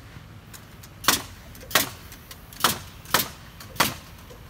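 Hammer blows on timber wall framing: five sharp strikes, a little over half a second apart, starting about a second in.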